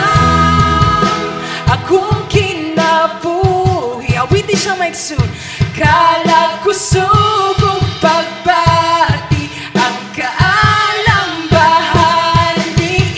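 Praise and worship song: singing over instrumental accompaniment with sharp beats. The deep bass drops out about a second in and comes back at the end.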